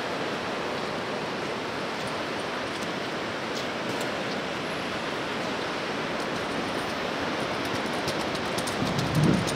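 River water rushing over a weir, a steady even roar of whitewater. A low rumble comes in near the end.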